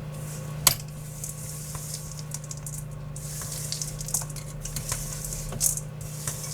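Raw granola mix of oats, nuts, seeds and dried cherries being stirred in a bowl: a dry, grainy rustling in short strokes, with a few sharp clicks of utensil against the bowl.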